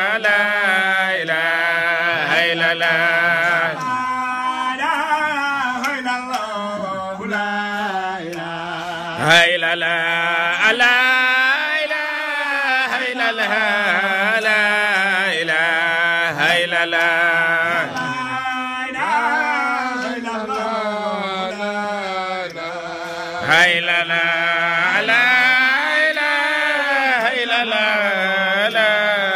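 A man's solo voice chanting an Arabic devotional song in long, ornamented, wavering phrases that glide downward. A fresh phrase starts loudly about nine seconds in and again near twenty-four seconds.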